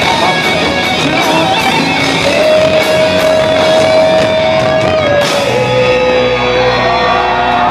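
Rock band playing live through a loud PA, with an electric guitar holding a long lead note over the band. The note steps down a little past halfway, and the cymbal hits stop about five seconds in.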